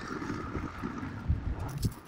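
Wind rumbling on the microphone, with two dull low thumps about halfway through and near the end.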